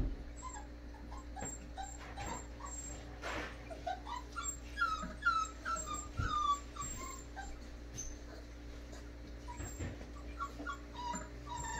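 Four-week-old American bully puppy whimpering: a run of short, high, falling whines, thickest in the middle, with a few more near the end.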